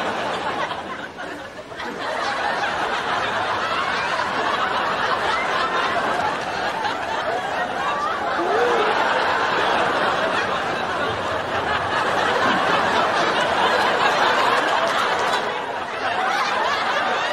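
Many people laughing and chattering at once, a continuous mix of voices that dips briefly near the start and near the end.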